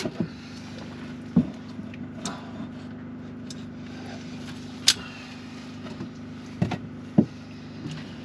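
Scattered knocks and clicks of hand tools and timber being handled at the hull's wooden frames, over a steady low mechanical hum.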